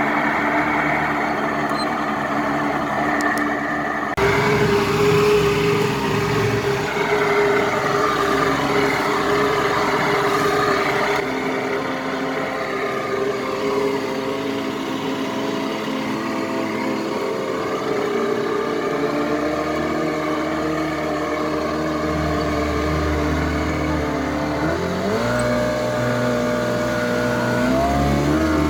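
The jet-drive engine of a 1992 Sea Ray boat running steadily under way. Near the end its pitch climbs in two steps as it speeds up.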